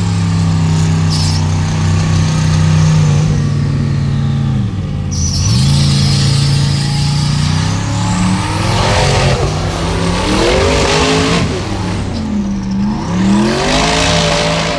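Turbocharged Formula Offroad buggy engine at high revs under load on a steep dirt climb. It holds a steady high pitch, drops off sharply about five seconds in, then revs up and down repeatedly, with a high whine rising and falling over it.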